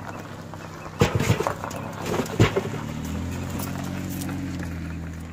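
Knocks and thumps of gear being handled in a car's open hatchback: a cluster about a second in and a sharp one near the middle. A steady low hum sets in at about three seconds and holds.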